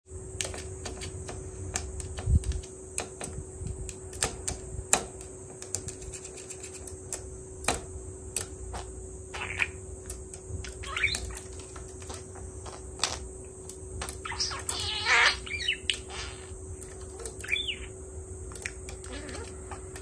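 Budgerigar tapping its beak against a small acrylic mirror, a run of sharp clicks, now quick, now spaced out. It gives a few short chirps in the second half, the longest about 15 seconds in, over a steady faint hum.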